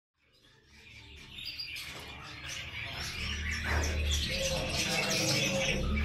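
Caged parakeet chirping in many short, high calls, fading in at the start, with a low steady hum underneath from about three seconds in.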